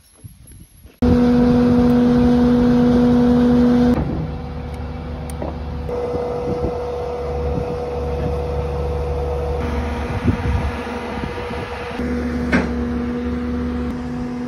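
Skid steer engine running steadily under load with a steady hum as its crane boom hoists a timber beam. It starts abruptly about a second in, and a sharp knock comes near the end.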